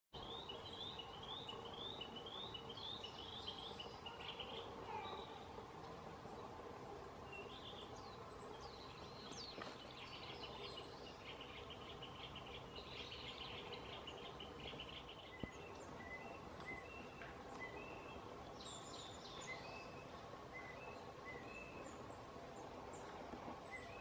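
Male Narcissus Flycatcher giving its call notes rather than song. A quick run of short rising notes opens, a denser chattering passage follows, then single short notes come about once a second, all faint over a steady background hum.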